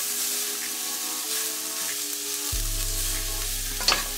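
Sliced vegetables sizzling in a hot frying pan while a wooden spatula stirs and turns them, with a steady hiss and a sharp knock about four seconds in.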